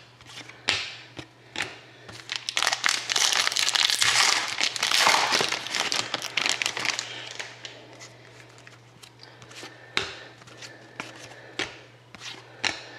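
A plastic-foil trading card pack wrapper crinkling as it is torn open and crumpled, loudest through the middle, followed by the light clicks and slides of cards being handled.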